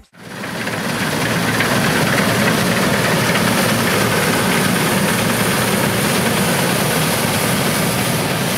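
Diesel engine of heavy harvest machinery running steadily at close range.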